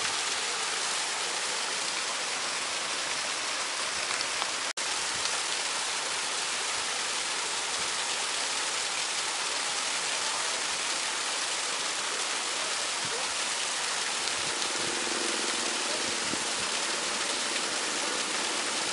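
Small waterfall splashing steadily into a fish pond, a constant hiss of falling water. It cuts out for an instant a little under five seconds in.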